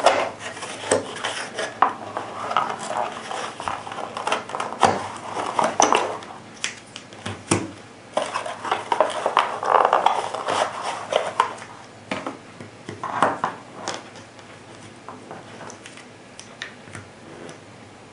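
Cardboard ammunition box being handled as plastic cartridge trays are slid out and set down on a table, with rustling and a run of plastic-and-brass clicks and rattles. The handling thins out to a few faint clicks near the end.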